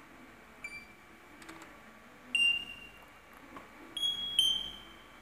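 A few short high-pitched beeping tones, with faint clicks in between.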